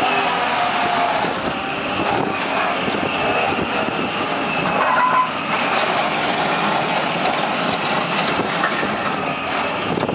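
New Holland LS180 skid steer running steadily, its engine noise mixed with a faint whine and scattered small clanks.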